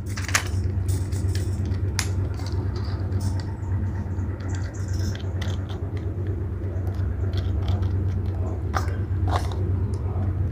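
Scattered handling clicks and scrapes as a green-dot sight is fitted and clamped onto the top rail of a gel blaster shotgun, a replica of the Benelli M4, over a steady low hum.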